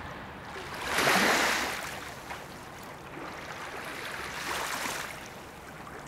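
River water splashing and lapping around a swimmer moving through it, with a louder swell of splashing about a second in and a smaller one about four and a half seconds in.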